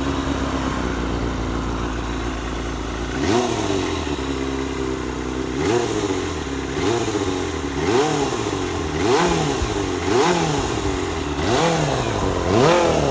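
Kawasaki ZXR250 inline-four idling, then blipped about eight times, each rev rising sharply and dropping straight back to idle. It runs through a Tsukigi aftermarket silencer with its baffle fitted.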